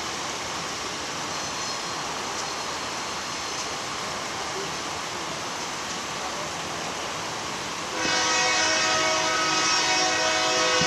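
Union Pacific freight locomotive's air horn sounding one long chord of several notes, starting about eight seconds in, over a steady background hiss.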